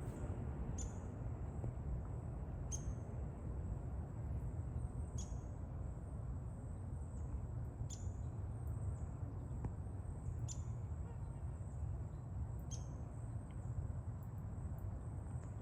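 Outdoor woodland ambience: a bird gives a short, high, downward-sliding chirp about every two and a half seconds, six times, over a faint steady high whine and a steady low rumble.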